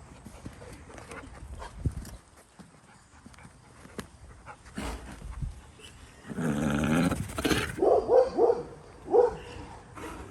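A dog vocalizing: one long, wavering whine-like call, then several short yelps near the end.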